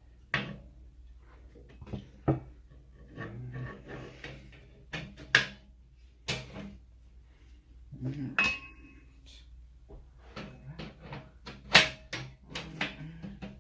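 Metal rack crossbar and frame uprights knocking and clanking together as the bar is handled and fitted into place, a string of irregular knocks, some ringing briefly, with the loudest clank near the end.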